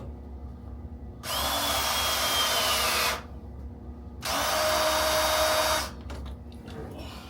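Power drill running in two bursts of about two seconds each, the first with a slightly falling whine.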